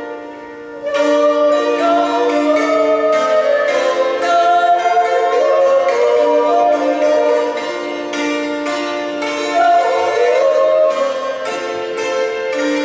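Swiss hackbrett (hammered dulcimer) struck in quick, ringing runs, accompanying two women yodelling a duet in held, gliding notes. The music dips briefly and comes back in about a second in.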